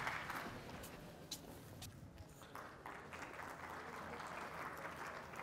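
Audience applause dying away to scattered claps and a faint hall murmur.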